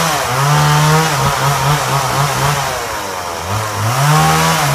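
Chainsaw engine held at high revs, blipped rapidly about four times a second, then dropping back before being revved up again about three and a half seconds in.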